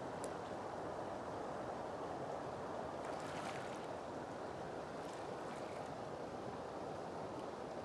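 Steady rush of shallow floodwater flowing past, with a few light splashes from legs wading through it about three and five seconds in.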